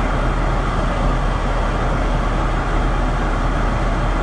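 Steady, even noise of a car running in heavy rain, with a low rumble and no distinct events.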